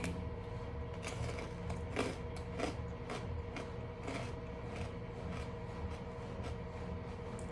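Crunching as someone chews crisp dried Chinese jujubes: irregular sharp crackles, about one or two a second, over a steady background hum.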